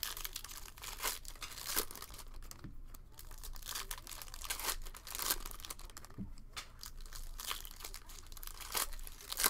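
Plastic cellophane wrapper of a Panini Prizm basketball cello pack crinkling and tearing as it is pulled open by hand, in a string of irregular crackles.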